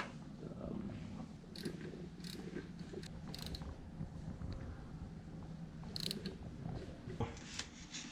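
A SRAM cassette being screwed onto a DT Swiss hub's XD driver and tightened down: a low, uneven metallic rattle with scattered sharp clicks.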